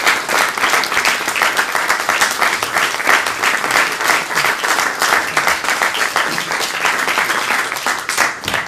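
Audience applause: many people clapping in a dense, steady patter that stops suddenly near the end.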